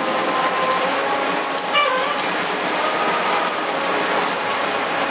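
Heavy rain pouring down on a flooded street: a steady, dense hiss of rain on water and pavement.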